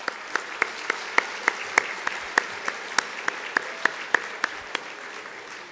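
Audience applauding in an auditorium: an even wash of clapping with a few near, sharp claps standing out at about three a second, dying away near the end.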